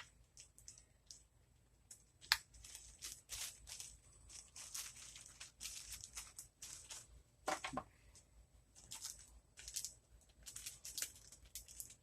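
Packaging crinkling and rustling in short bursts as items are handled and unwrapped, with one sharp click about two seconds in.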